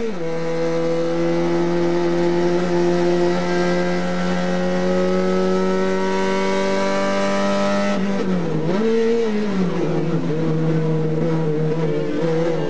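TC 850 race car's engine heard from inside the cockpit under racing throttle. The pitch drops sharply at the start with an upshift, then climbs steadily for about eight seconds; the revs then fall, flare briefly and fall again, waver, and start climbing once more near the end.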